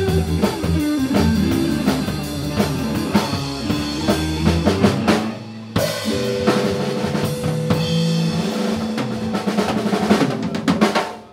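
Live rock 'n' roll band playing an instrumental passage with the drum kit out front (snare, rimshots, bass drum) over electric guitar and bass. There is a short break about five seconds in, then a held note with the drums still hitting.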